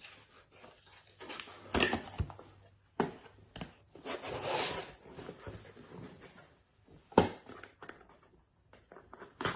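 A shower-head box being opened and its packaging handled: a few sharp knocks and taps with rustling in between, the loudest knock about seven seconds in.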